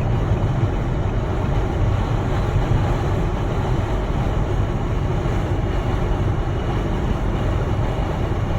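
Blizzard wind blowing steadily, a continuous rushing noise with a heavy low rumble of wind on the microphone.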